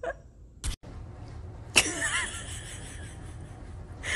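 A person chuckling softly, starting a little before halfway in, over faint room noise; a brief knock comes near the start.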